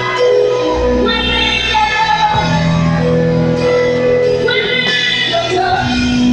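A gospel praise choir singing into microphones over instrumental backing, the voices holding long notes.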